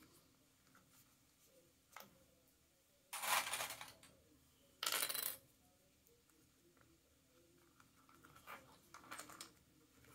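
Plastic sewing clips clattering and clicking as they are unclipped and handled: two loud bursts of clatter about three and five seconds in, then lighter clicks near the end.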